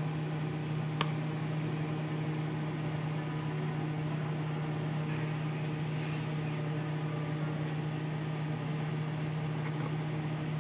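A steady low mechanical hum, with a single light click about a second in.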